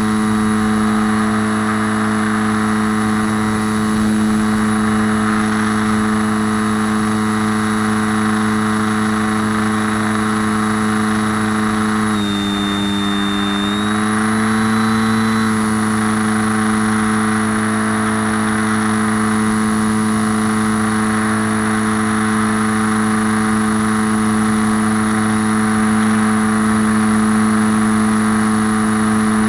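Dancing Wings FPV Spanner's motor and propeller in flight, heard from the plane's onboard camera: a steady hum over a hiss. The pitch dips for a couple of seconds about twelve seconds in, then comes back up.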